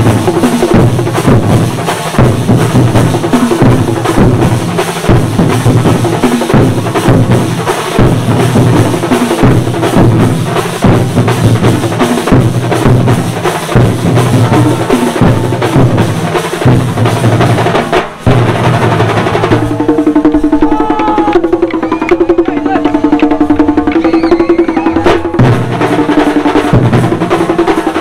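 A troupe of chenda drummers playing a fast, dense rhythm. About nineteen seconds in, the drumming thins and a melody of held notes that step up and down comes in over the beat.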